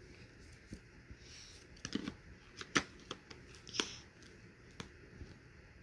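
Cardboard puzzle pieces being handled and pressed into place on a cardboard box: a scattering of soft taps and clicks about a second apart.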